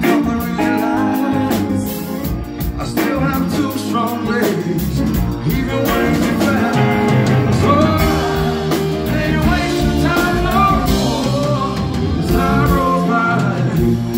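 A live band playing a song: electric guitar and drum kit with a male singer.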